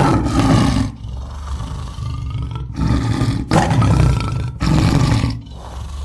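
Tiger roars, a recorded roar sound repeated several times in quick succession.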